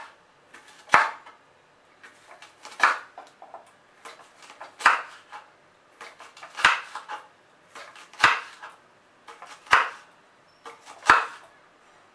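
Kitchen knife slicing through star fruit onto a wooden chopping board: a sharp knock of the blade on the board every one and a half to two seconds, with softer cutting sounds between.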